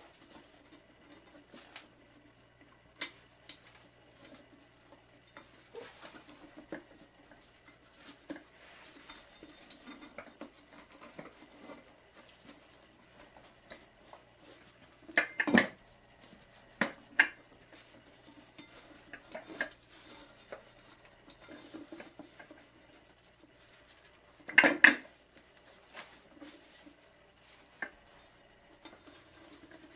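Scattered metallic clinks and knocks as a small mower wheel and its tire are worked by hand on a mini tire changer. The loudest knocks come in a cluster about halfway through and again some ten seconds later.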